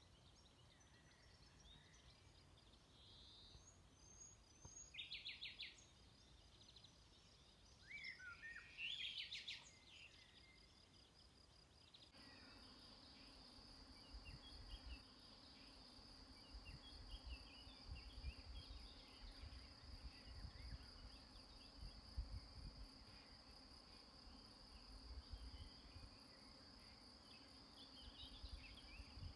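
Faint countryside ambience: a few short bird chirps in the first part. From about twelve seconds in, a steady high insect trill takes over, with scattered small chirps and a low rumble that comes and goes.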